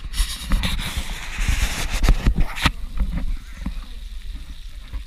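Handling noise from a small camera being moved about and pressed against things: rubbing and scraping with several knocks over the first three seconds, quieter knocks after, and a low rumble underneath.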